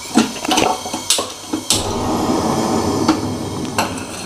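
A glass lid and a cooking pot knocking and clinking several times as they are handled, with a steady bubbling hiss of curry simmering under the lid through the middle.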